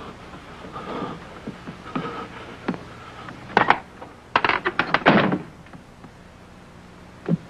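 A sharp knock, then a quick cluster of loud knocks and thuds about four to five seconds in, over a low steady hum.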